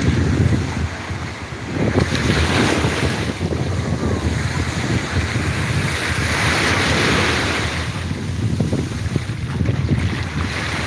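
Small sea waves breaking and washing up a sandy shore, the wash swelling twice, with wind buffeting the microphone.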